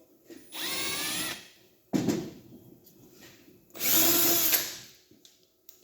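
Milwaukee cordless drill run in three short bursts, its motor whine rising in pitch as it spins up each time.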